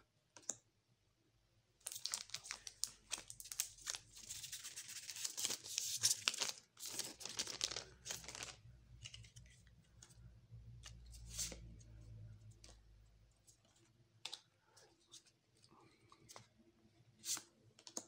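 A foil booster-pack wrapper being torn open, crinkling and crackling for about six seconds. After that come scattered light clicks and taps of trading cards being handled.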